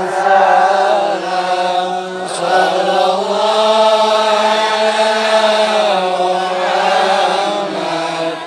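Male voice chanting Islamic devotional verses (shalawat) in long, ornamented melodic phrases over a steady low held note, with a short breath about two seconds in.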